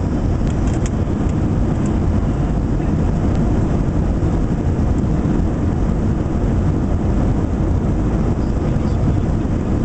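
Steady cabin noise of a Boeing 737-800 airliner: the even, low drone of its CFM56 engines and the air around the cabin.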